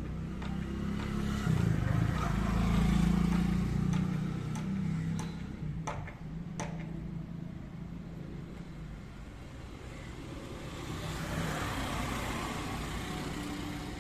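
A motor vehicle engine running close by, loudest in the first few seconds and then fading to a lower hum. Four sharp clicks fall around the middle.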